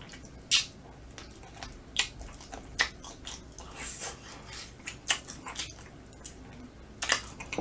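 A person chewing smoked chicken close to the microphone, with sharp mouth clicks at irregular intervals.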